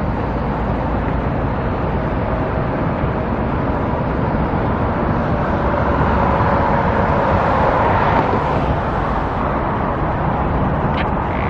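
Steady outdoor traffic noise, swelling as a vehicle passes about six to nine seconds in.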